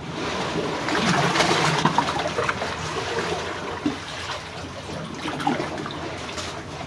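Sea water sloshing and trickling among breakwater rocks and concrete blocks, swelling about a second in and then easing.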